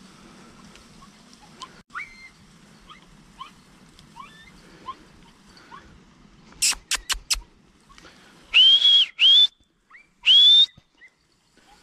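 Three loud, high whistles, two short ones close together and then a longer one, each rising and then holding: a hunter whistling to call his dogs. Before them come faint chirps and a quick run of four sharp clicks.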